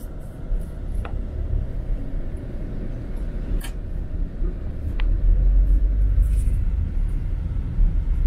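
Tour bus driving, heard from inside the cabin: a steady low rumble of engine and road noise that grows louder about halfway through, with a few faint ticks.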